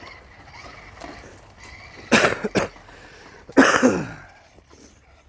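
A person coughing: a quick fit of short coughs about two seconds in, then one louder cough with a falling voiced tail a second and a half later.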